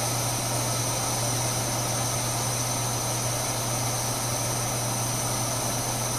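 MSR Whisperlite International liquid-fuel stove burning white gas at about medium flame under a pot of water: a steady, even rushing noise from the pressurized burner, with a low hum underneath.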